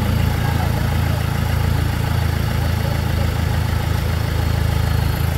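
Off-road Jeep's engine running steadily at low revs, with no revving or change in pitch.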